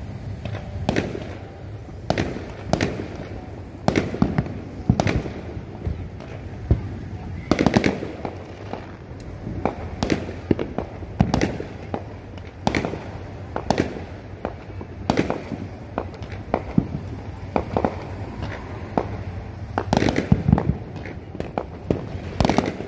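Fireworks going off in an irregular string of sharp bangs, about one or two a second, with a denser burst of them near the end.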